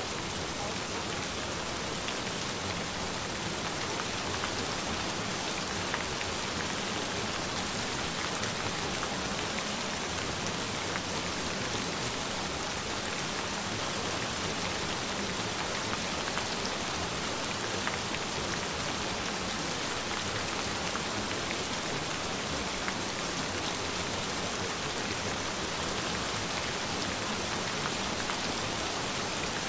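Gentle rain falling steadily, an even hiss with faint scattered drop ticks throughout.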